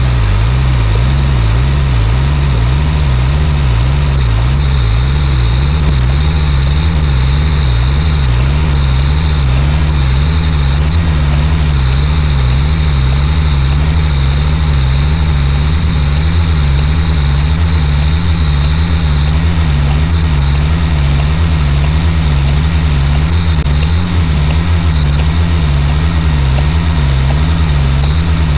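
LMTV truck's diesel engine running steadily at a raised idle of about 1100 RPM, driving the air compressor while the central tire inflation system refills the tires.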